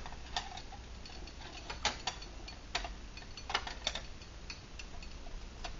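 Light, irregular metallic clicks, about six of them, as an aluminium cooking pot rocks against the top of a titanium alcohol stove while a hand holds it. The pot's slightly bent-up bottom makes it wobble on the burner.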